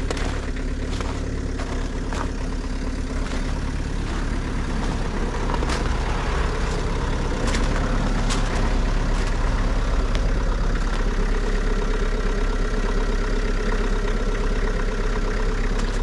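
Ford Focus Mk2 1.8 TDCi four-cylinder diesel idling steadily, just after a hard cold start in sub-zero cold following a week without running. A few light clicks can be heard over it.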